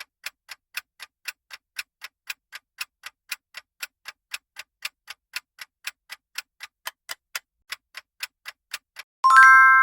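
Countdown timer sound effect: a clock ticking steadily about four times a second, then near the end a bright chime of several steady tones, marking that the time to guess is up.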